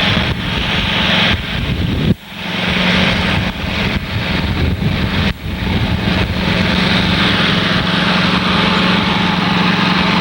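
Small engine running steadily with a constant hum, dipping briefly about two seconds and again about five seconds in.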